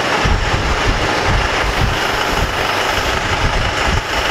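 Farm tractor's engine running steadily as the front-loader tractor drives in with a disc harrow on its loader.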